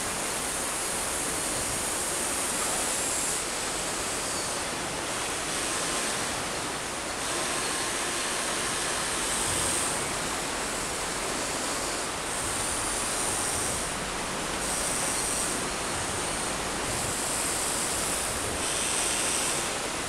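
Steady rushing of flowing water. Over it, the high whine of the Huina 1593 RC excavator's electric motors comes and goes several times as it works its boom and bucket.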